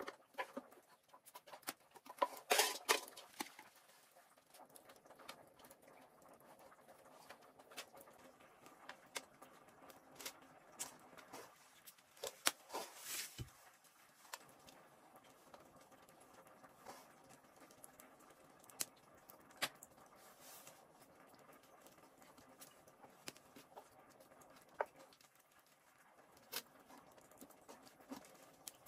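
Faint scattered clicks, rustles and small knocks of hands working meat onto a bamboo skewer in a metal bowl, with a few louder clusters of handling about two seconds in and about twelve seconds in.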